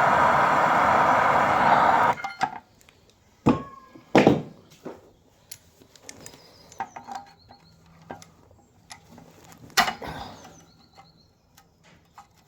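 A loud steady rushing noise that cuts off suddenly about two seconds in. Then scattered metal knocks and clanks of hand tools on the axle while seized bolts are worked loose, the loudest about a second and a half later and again near ten seconds in.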